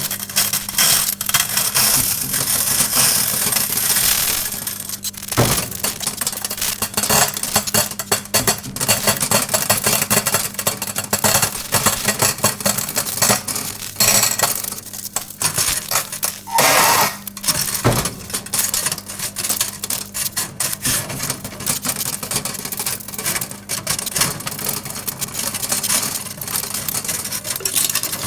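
Several metal forks arcing in a running microwave oven: dense, irregular crackling and snapping sparks over the oven's steady hum, with a few louder snaps around 5 and 18 seconds in.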